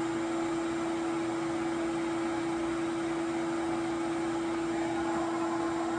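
Ridgid wet/dry shop vac running steadily, a constant motor hum over an even rush of air, pulling suction through a Dustopper Pro cyclone separator and its hose. The separator restricts the flow to about 250 CFM.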